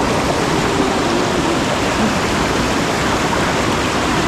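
Steady rush of a small flooded creek running high after heavy rain, water pouring over a riffle or ledge.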